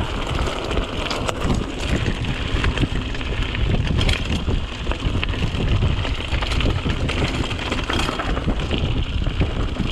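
Mountain bike descending a rough trail, heard from an action camera on the bike or rider: a steady roar of wind on the microphone and tyres over rough ground, with constant small knocks and rattles from the bike.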